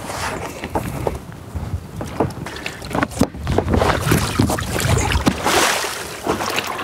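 Water splashing and sloshing as an inflatable PVC boat is heaved onto its side and flipped over in shallow water, with knocks and rubbing from its tubes and floor. A bigger splash comes a little over five seconds in as the boat lands upside-down.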